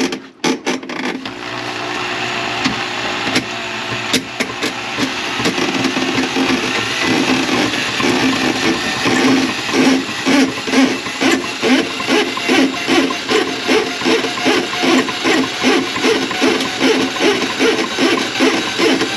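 Electric drain-cleaning machine running, its spinning cable fed into a kitchen sink drain line to clear a grease clog. The motor noise builds up just after the start, and from about halfway through it pulses evenly at about two beats a second.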